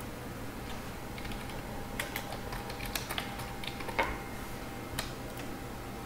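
Scattered light clicks of a computer keyboard and mouse, irregular and bunched together over a few seconds, with the sharpest click about four seconds in.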